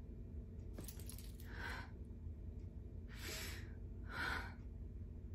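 A woman taking two deep breaths, each an audible in-breath followed by a long out-breath, over a faint steady low room hum.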